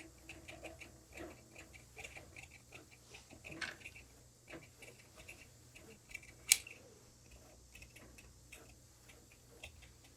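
Tailor's shears snipping through coat fabric: a run of small, irregular crisp clicks, with one louder click about six and a half seconds in.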